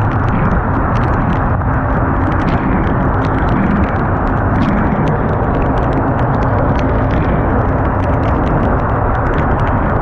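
Constant loud rush of wind on the microphone and water against the hull of a boat running at speed through choppy sea, with irregular sharp crackles of spray and chop.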